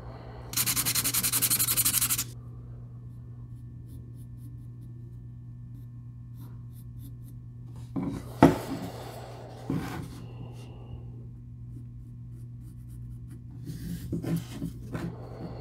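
Graphite pencil scratching and rubbing on the belly of a carved lure, in short spells about eight and fourteen seconds in, over a steady low hum. Just before that, a loud hiss of about two seconds begins half a second in.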